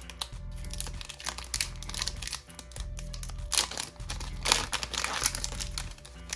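Irregular crinkling and rustling of plastic trading-card packaging as cards are handled, over background music with a steady bass line.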